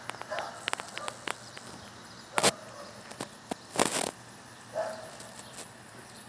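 Close-up handling sounds of a pet turtle held against the phone's microphone: scattered clicks and taps of shell and fingers, with a sharp scrape about two and a half seconds in and a longer rustling rub around four seconds.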